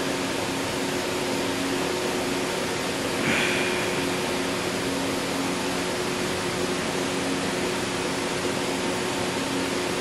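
Steady mechanical whir with a low hum of a few steady tones, like a running fan, and one short, louder noise about three seconds in.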